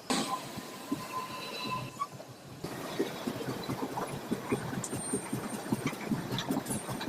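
Train running on the rails, its wheels giving a rapid run of irregular clattering knocks over a steady rumble. In the first two seconds a steady whine sounds over the rumble, and it stops abruptly.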